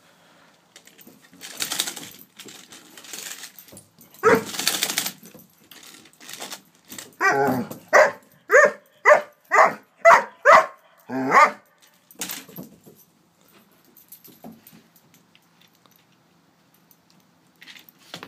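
Young Doberman barking in a quick run of about eight barks, roughly two a second, at a toy horse it is afraid of. A single loud burst comes about four seconds earlier.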